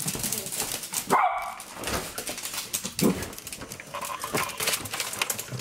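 Pet dog barking, two sharp barks about a second and three seconds in. The dog is barking to be let outside.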